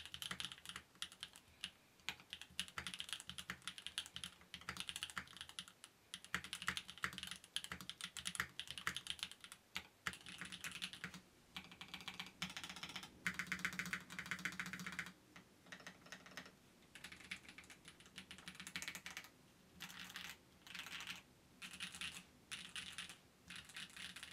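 Mechanical keyboard typing: a fast, dense stream of keystrokes for about the first half, then shorter runs of typing with brief pauses between them. The keyboard is a Mode Sonnet 75% fitted with Gateron Cream Soda switches and TX stabilizers.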